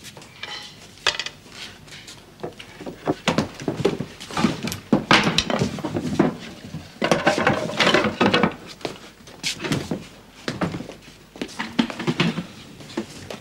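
Hurried clattering and knocking of small hard objects being handled and moved about in a small room, with many sharp clicks coming in busy clusters.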